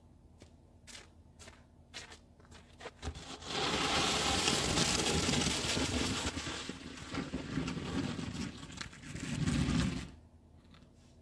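Snow shovel scraping along snow-covered pavement: a long, rough scrape that starts about three seconds in and stops suddenly near the end, after a few faint ticks.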